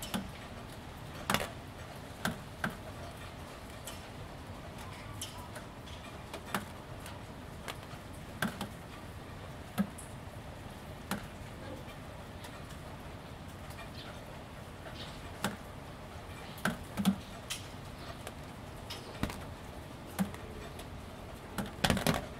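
Light, steady rain with raindrops falling irregularly onto a wet ribbed sill panel, each landing as a sharp tick about once a second, with a quick flurry of ticks near the end.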